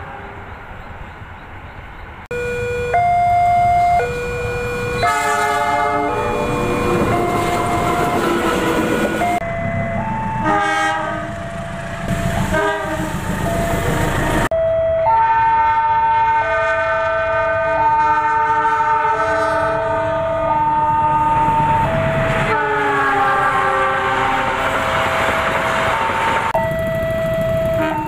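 Indonesian diesel locomotive air horns (KAI CC 206 and CC 201) sounding a series of long multi-note blasts. Several different horns follow one another with abrupt cuts between them, over the low rumble of passing trains, and the horns start about two seconds in. These are Semboyan 35 signals, the driver's long horn sound in answer to the departure signal.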